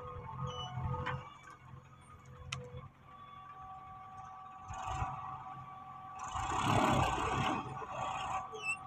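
Diesel engines of a JCB 3DX backhoe loader and a Massey Ferguson tractor running, with steady whining tones throughout. A louder rush of noise lasts about two seconds, starting a little past halfway, as the rock-laden tractor moves off.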